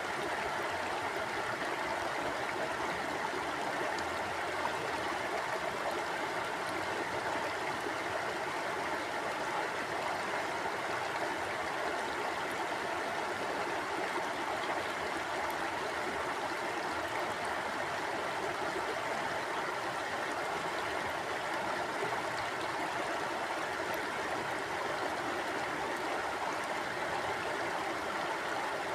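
Shallow stream flowing steadily, water rushing and gurgling over rocks with an unbroken, even hiss.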